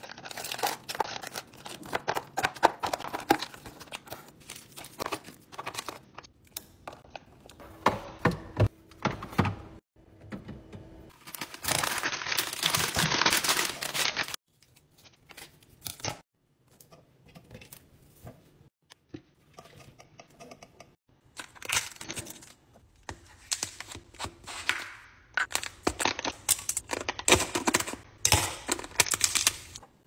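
Hands handling groceries and kitchen containers: packaging crinkling and tearing, with clicks and knocks of plastic and glass containers set down and opened. It comes in short bursts broken by abrupt cuts.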